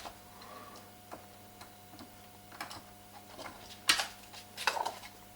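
Scattered small clicks and ticks of tiny Torx screws and a screwdriver being handled and set down on a work surface, the loudest about four seconds in, over a faint steady hum.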